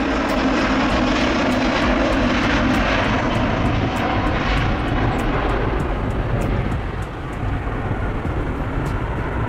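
Airbus A350-1000's twin Rolls-Royce Trent XWB turbofans at takeoff power as the jet rolls down the runway and lifts off: a loud, steady rush of jet noise over a deep rumble, its higher part thinning out from about halfway through as the aircraft climbs away.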